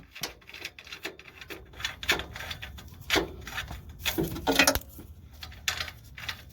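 Hand tools and metal parts being handled: irregular clinks, taps and rubbing, with a few sharper knocks.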